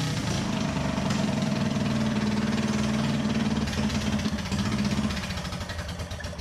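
Small single-cylinder gasoline engine running steadily with a fast even firing pulse, fading away near the end.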